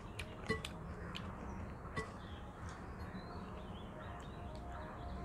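Quiet eating sounds as two people mix and eat rice and curry with their fingers from clay plates: a few sharp clicks and mouth smacks in the first two seconds, then soft chewing over a low background hum.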